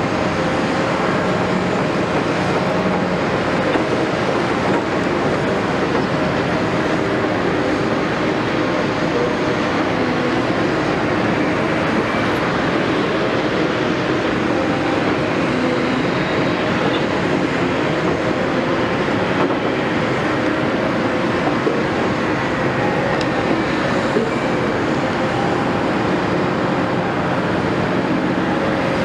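Caterpillar 329E excavator's diesel engine and hydraulics running under work, a steady dense machinery noise with several tones that drift a little in pitch.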